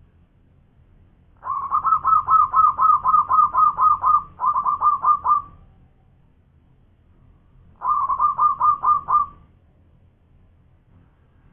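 Zebra dove (perkutut) singing its manggung song: two loud runs of rapid, even coos. The first, long run starts about a second and a half in and has a brief break near its end. A second, shorter run comes about eight seconds in.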